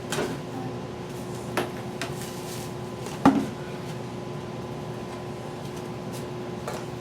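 Steady hum of a microwave oven running, with a few light kitchen clicks and knocks over it; the loudest is a sharp knock about three seconds in.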